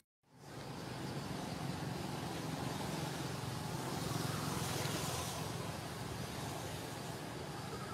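Steady outdoor background rumble and hiss, such as distant traffic or wind, after a very brief dropout to silence at the start.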